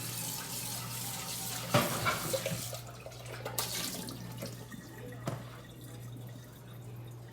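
Water running from a kitchen tap into the sink. It stops about three seconds in and runs briefly again a second later, with a few clinks of dishes about two seconds in and one more near five seconds, over a steady low hum.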